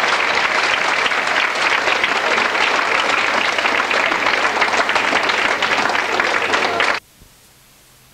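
Audience applauding steadily. The applause cuts off suddenly about seven seconds in, leaving only a faint hiss.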